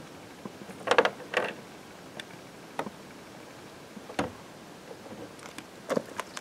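Scattered short knocks and clicks, about five in all and loudest about a second in, from a hard plastic outrigger float and its mounting arm being handled and fitted on a fishing kayak.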